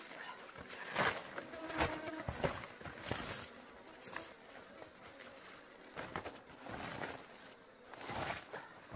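A thin plastic bag rustling and crinkling in repeated short bursts as it is opened out and shaken.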